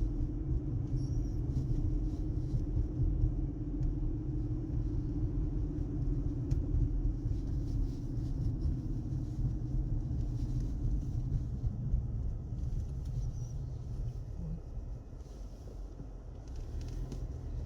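Car driving on a snowy road: a steady low rumble of road and engine noise that eases off somewhat in the last few seconds.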